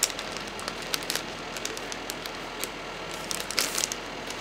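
Plastic packaging sleeve crinkling and crackling as it is handled and opened, in scattered bursts of sharp crackles, the loudest cluster about three and a half seconds in.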